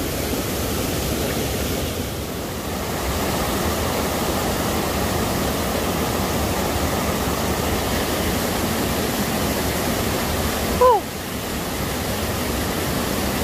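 Stream water rushing steadily over rocky cascades and small waterfalls. Near the end, a brief call with a falling pitch cuts in once.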